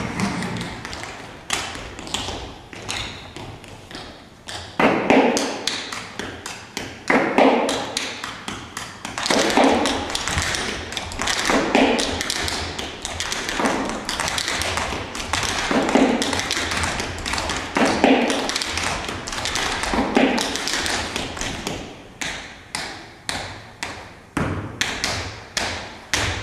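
Dancers making rhythmic percussion on a stage: a steady stream of quick taps, with a heavier thud about every two seconds.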